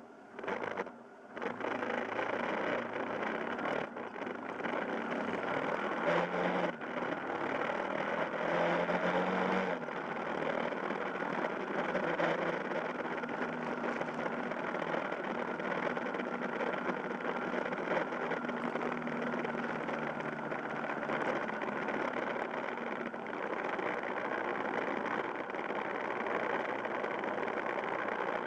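Yamaha Fazer YS250 motorcycle's single-cylinder engine running under way, mixed with wind and road noise on a handlebar-mounted camera. Quieter for the first second or two, then steady.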